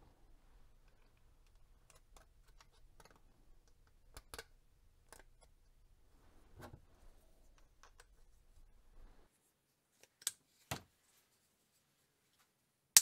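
Light clicks and taps of 3D-printed plastic parts being handled and fitted together, shaft and clip pieces pushed into place on the hopper. Two sharper clicks come about ten seconds in, and a loud sharp click right at the end.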